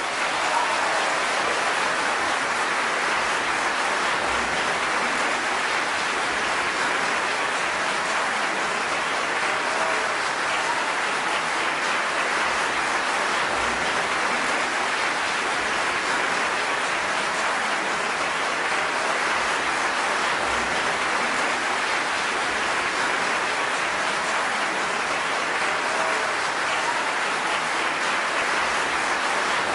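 A steady, even rushing hiss at a constant level, with no music or voice in it.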